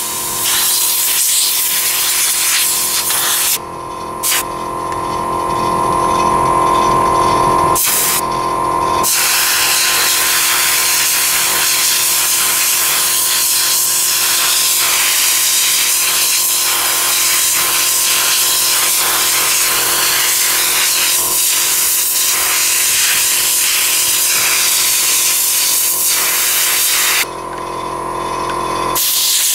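Compressed-air blow gun hissing as it blows dust and sand out of a car cabin air filter, in long blasts broken by a pause of about five seconds near the start and a shorter one near the end. A steady hum runs underneath, clearest in the pauses.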